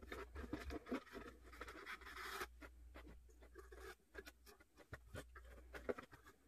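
Jute twine scraping and rustling against corrugated cardboard as it is pulled through holes in a cardboard box, with small taps and handling noises on the box and a longer scrape about two seconds in.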